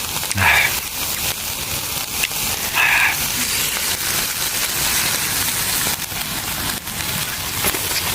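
Steady rain pattering, a dense run of fine ticks, with two short sounds about half a second and three seconds in.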